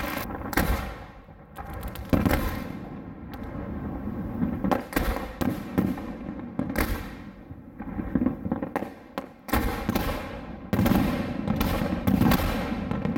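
Aerial firework shells bursting one after another: sharp bangs and booms at irregular spacing, coming thicker in rapid volleys in the second half.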